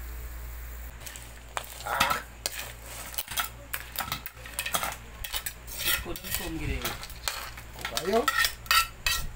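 A metal utensil scraping and clattering against a wok as cooked crabs are pushed out onto a ceramic plate, their hard shells knocking against the plate and each other in irregular clicks and scrapes.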